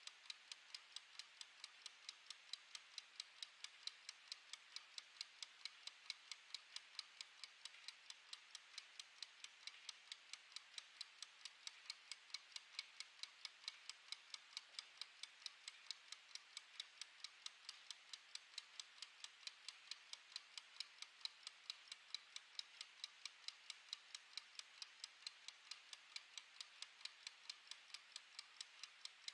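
Mechanical wind-up kitchen timer's clockwork ticking while it runs down, a quick, even train of sharp ticks, several a second.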